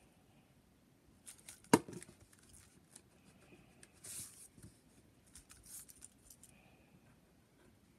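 Pencil scratching on paper in short drawing strokes, with one sharp click about two seconds in.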